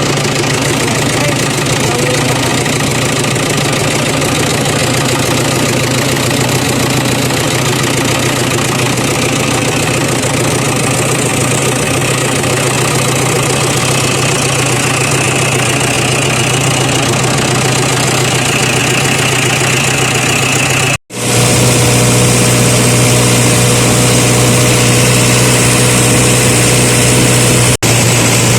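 An engine running steadily at a constant speed, with two brief dropouts: one about 21 seconds in and one near the end.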